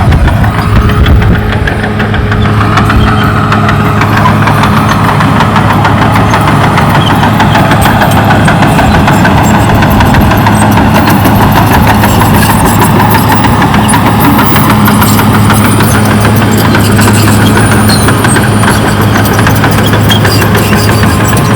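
Diesel engine of a CAT D6R XL crawler bulldozer running steadily, a continuous low drone with a clattering edge.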